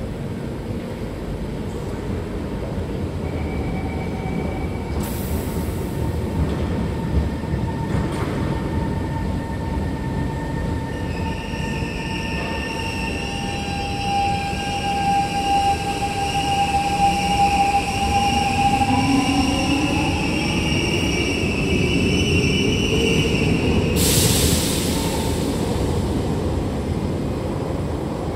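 Siemens C651 metro train with GTO-VVVF inverter drive pulling away from an underground platform. A short hiss comes about five seconds in. From about eleven seconds the inverter's steady whine tones sound, then a motor note rises in pitch as the train accelerates, and a broad hiss swells near the end as the train leaves.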